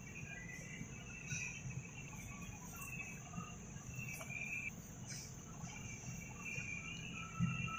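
A hand kneading raw minced meat with garlic and spices in a steel bowl, soft squishing of the mince against the metal, under a steady high-pitched background hum with intermittent higher chirring.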